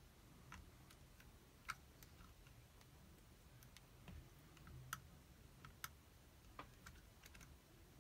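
Faint, irregular clicks of a lock pick working the levers of a safety deposit box lever lock while tension is held on it.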